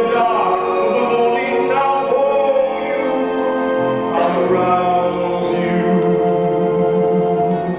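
A man singing a musical-theatre song with orchestra accompaniment, holding long notes.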